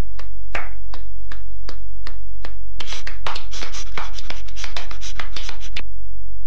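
A steady rhythm of sharp clicks, about two and a half a second, which from about three seconds in become louder, fuller strokes and stop shortly before the end, over a low steady hum.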